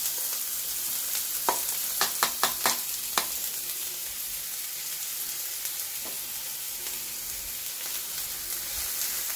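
Chopped onions sizzling in hot oil in a frying pan, a steady hiss with a handful of sharp clicks between about one and three seconds in.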